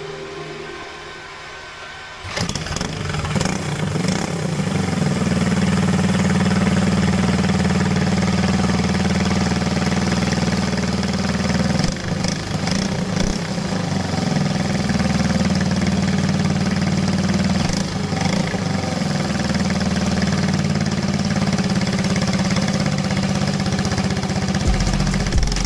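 Briggs & Stratton LO206 single-cylinder four-stroke kart engine on a dyno: it comes in suddenly about two seconds in, builds over the next few seconds, then runs at a steady speed, dipping briefly twice.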